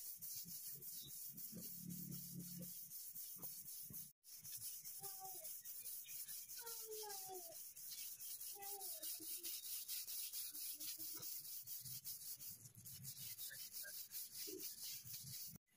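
Stiff-bristled plastic hand scrub brush rubbing back and forth over a woven plastic floor mat: a steady scratchy scrubbing of quick, repeated strokes.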